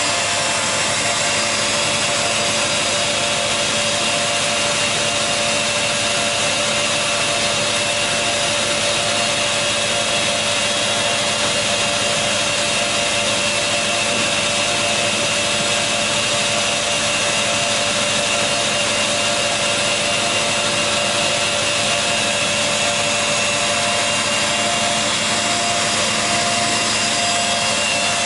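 WEINIG Profimat 22N four-sided planer-moulder running steadily, a constant machine noise with a few held tones over an even hiss.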